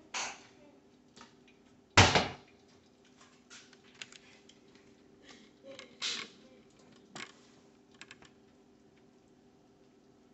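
Scattered knocks, taps and clicks of things being handled, the loudest a sharp thump about two seconds in, with others near six and seven seconds. A faint steady hum runs underneath.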